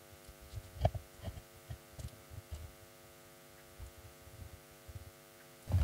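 Steady electrical mains hum, with a few faint soft knocks in the first half or so.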